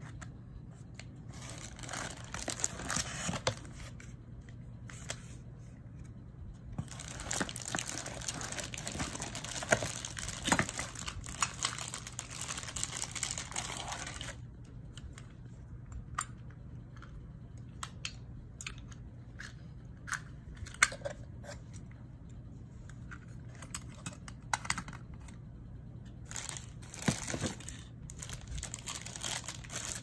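Plastic packaging bags crinkling and rustling in irregular bursts as lock parts are unwrapped and pulled from a cardboard box, with a long stretch of crinkling in the first half and scattered small clicks and knocks of parts being handled, over a low steady hum.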